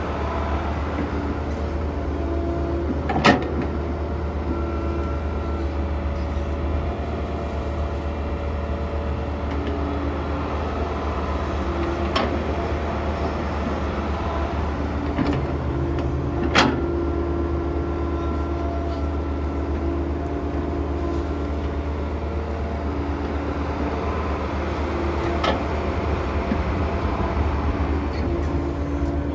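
Kobelco SK120-1 excavator's diesel engine running steadily as it works, with four sharp clanks over the steady drone, the loudest about three seconds in and just past the middle.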